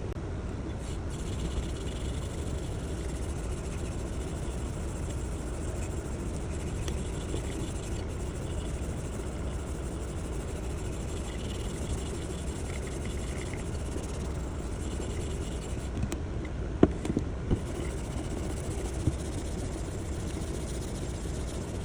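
A motor running steadily with a low hum, with a few sharp clicks about 17 seconds in.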